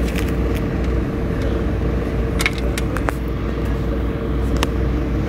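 A steady low mechanical rumble with a constant hum, and a few faint clicks.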